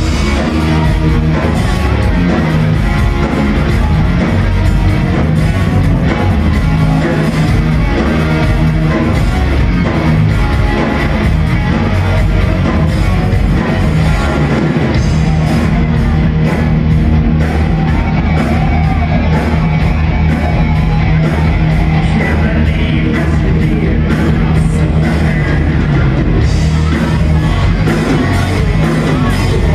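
A rock band playing live and loud: electric guitars, bass and drums with a singer, heard from the audience in a large hall.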